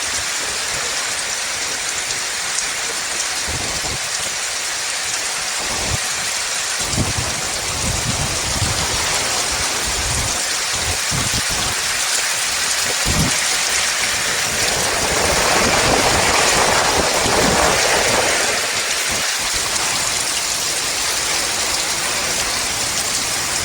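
Heavy rain pouring steadily in a strong wind, with gusts buffeting the microphone in low rumbles through the middle and a louder surge of wind-driven rain partway through.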